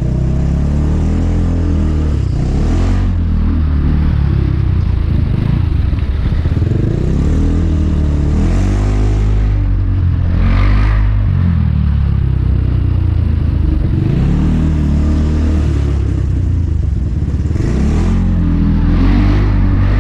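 Motor scooter engine running under way, its pitch rising and falling repeatedly as the throttle opens and closes.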